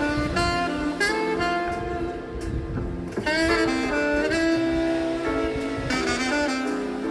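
Background instrumental music in a jazz style: a melody of held notes over a bass line.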